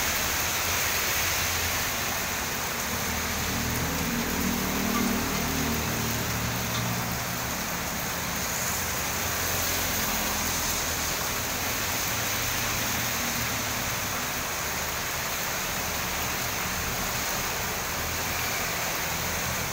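Heavy tropical rain pouring down steadily on a street, an even hiss. A passing vehicle adds a low engine hum for a few seconds, starting about three seconds in.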